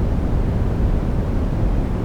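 Steady synthetic brown and pink noise mix: an even, unbroken hiss weighted toward the low end, with a deep rumble that thins out toward the top.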